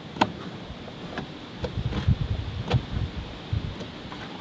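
Knife clicking against a cutting board as a smoked duck is carved and pulled apart by hand: a few sharp clicks, the loudest just after the start, with dull low thumps of the meat being handled in the middle, over a steady hiss.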